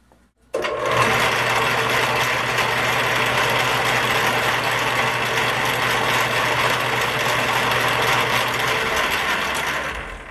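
Vernon lathe's electric motor and new V-belt drive switched on, starting abruptly, running steadily with a hum and a dense mechanical chatter, then switched off and coasting down near the end. The brand-new belts run erratically, which the owner puts down to a deformity, especially in the outer belt.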